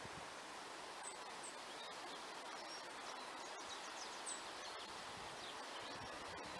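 Faint outdoor ambience: a steady hiss of breeze through trees and grass, with a few short, high bird chirps.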